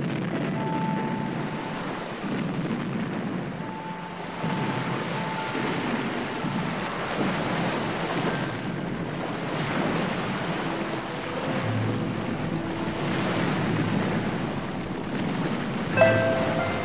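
Sea waves washing in a steady wash of surf and wind, rising and falling slowly, with a few faint held tones over it. Music comes in near the end.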